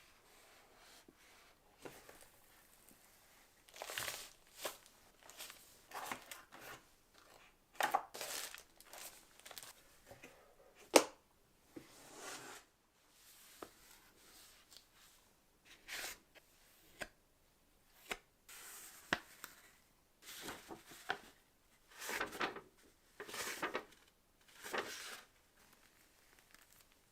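Rustling and tearing of packaging being handled, in irregular bursts with pauses between them, and one sharp click about eleven seconds in.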